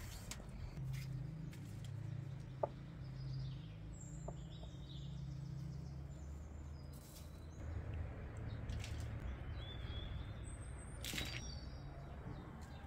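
Small birds chirping now and then over a steady low hum, with a few light clicks and rustles of knife and foil handling; a sharp click about two and a half seconds in is the loudest sound.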